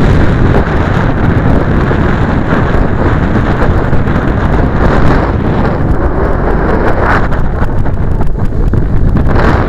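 Strong wind buffeting the microphone: a loud, steady rumble of noise, with no motor, since the model is an unpowered slope-soaring glider.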